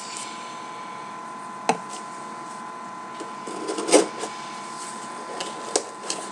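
Keys and scissors cutting the packing tape on a cardboard shipping box, with the box being handled: scattered scrapes and knocks, the loudest about four seconds in, over a faint steady high whine.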